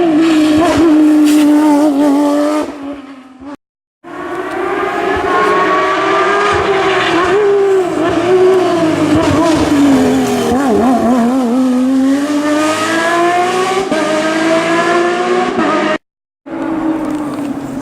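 Porsche 911 (997) rally car's flat-six engine revving hard, its pitch climbing and falling through gear changes as it drives a rally stage. The sound breaks off twice for a moment of silence where one clip cuts to the next.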